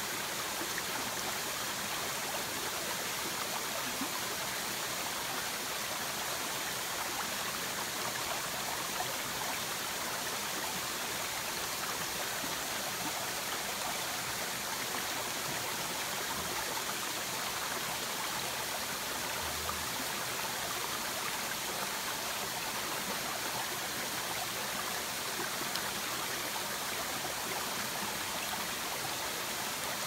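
Forest stream flowing, a steady, even sound of running water.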